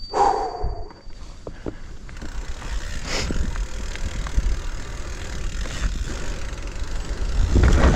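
Mountain bike riding down a rough, rooty, rocky trail: the tyres roll over roots and rocks while the bike rattles and clicks. Rolling and wind noise grow steadily louder toward the end as the bike picks up speed.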